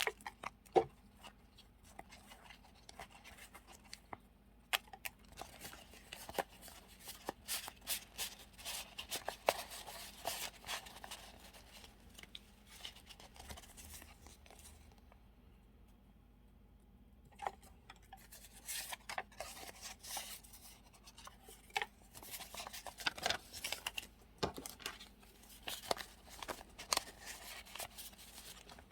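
Paper journaling stickers and supplies handled and sorted by hand: paper rustling and crinkling, with light taps and clicks. There is a quieter pause of about three seconds midway.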